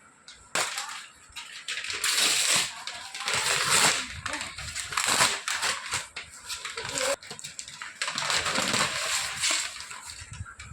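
Packaging of a toy gun being handled and opened: irregular bouts of crinkling and rustling with scraping, starting about half a second in.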